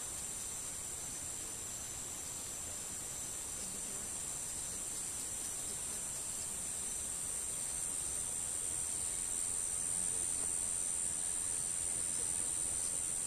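Insects calling in a steady, high-pitched chorus.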